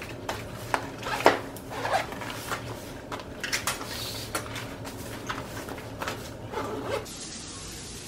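Clothes and belongings being handled while a suitcase is unpacked: irregular rustling with light knocks and clicks over a steady low hum. The handling stops about seven seconds in.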